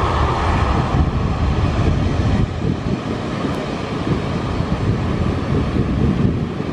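Jet engines of a Garuda Indonesia Boeing 737 at taxi power as it turns on the runway and moves away: a steady low rumble, with wind buffeting the microphone, easing slightly near the end.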